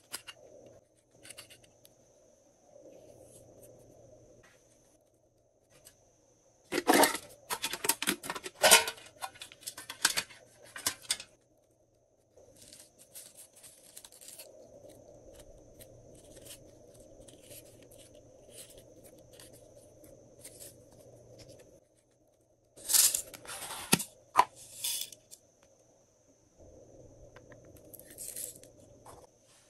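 Small plastic add-in packets and foam pieces being torn and pulled open by hand, in two bouts of sharp crinkly tearing, one a few seconds in and a shorter one later, with faint handling rustle between.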